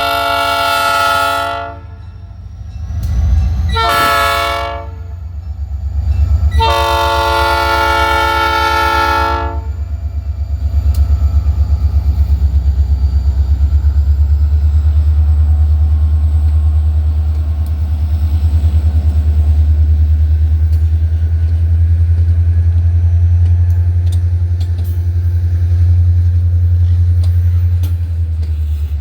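Diesel locomotive horn sounding a long blast, a short one and another long one, then the deep steady rumble of an EMD SD40-2's engine working as the locomotive runs with its train.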